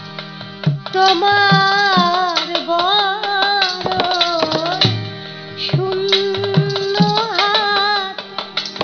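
Bengali Baul song: a woman singing over a harmonium, with a two-headed barrel drum beating the rhythm and small hand percussion. The melody drops out briefly just after the start and again about five seconds in, while the drum strokes carry on.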